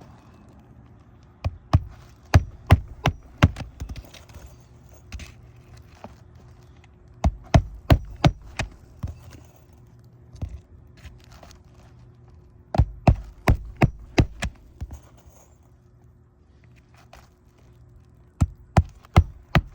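Hammer driving roofing nails into asphalt shingles, struck in four bursts of several sharp blows each, with pauses between the bursts.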